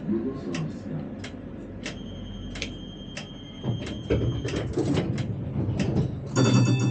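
Electronic signals and clicks inside a tram's driver's cab: repeated short clicks, a steady high beep lasting about two and a half seconds, then a loud buzzing tone starting near the end.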